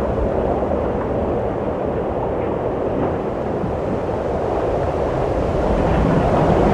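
Steady, low rushing wind that swells slightly near the end.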